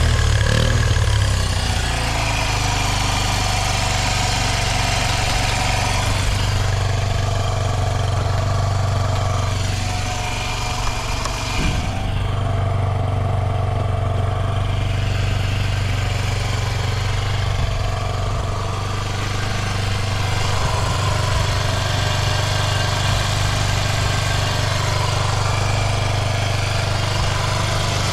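Honda Ape 50's carburetted 49 cc single-cylinder four-stroke engine idling steadily with no abnormal noise, after a brief rise in revs that settles about a second in. There is one short blip near the middle.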